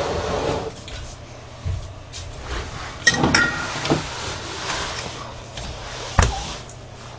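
Off-camera handling noise: a few knocks and clatters with rubbing between them. The sharpest knock comes about six seconds in.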